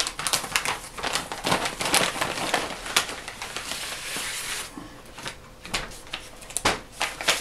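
Plastic mailing bag crinkling and rustling as it is opened and handled. About two-thirds of the way through, the crinkling thins to a few separate crackles as the contents are pulled out.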